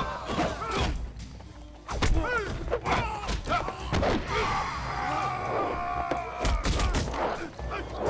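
Kung fu film fight soundtrack: a rapid, uneven string of punch and kick impact sounds, the loudest about two seconds in, mixed with the fighters' shouts and a music score.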